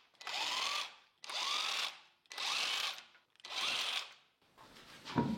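Power impact wrench spinning out the wheel bolts one after another: four short runs about a second apart, each starting with a rising whine, then a clunk near the end.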